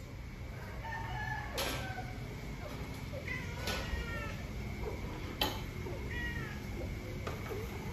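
Cat meowing in several short, partly falling calls during mating, with the female in heat. Three sharp clicks fall between the calls.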